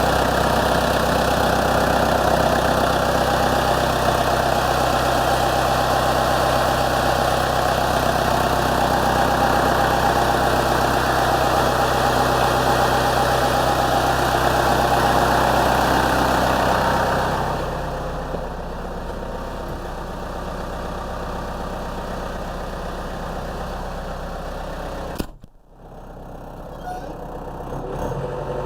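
Yanmar US540 tractor's 4TNE88 four-cylinder diesel engine running steadily, then settling to a quieter idle about two-thirds of the way in. Near the end the sound briefly cuts out, then the engine's level climbs again.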